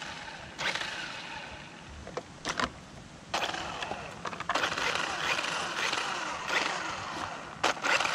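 Toy-grade RC car driving: its small electric motor whines up and down with the throttle over rolling wheel noise, with a couple of sharp knocks.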